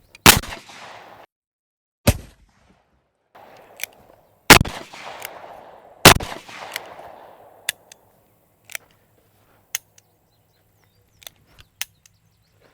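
Four loud, sharp shot-like cracks about two seconds apart, each with a short ringing tail, followed by a string of fainter single clicks.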